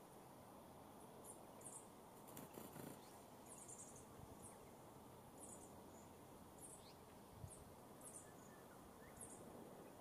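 Faint, short high-pitched chirps from diamond firetails at the nest, repeated about once a second, with a brief rustle of nest grass about two and a half seconds in and a soft knock later on.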